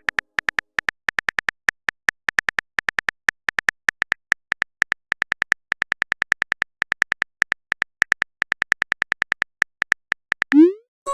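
Phone on-screen keyboard typing sound effect: a long run of quick, irregular taps, about five or six a second. Near the end comes a short rising swoosh of a text message being sent.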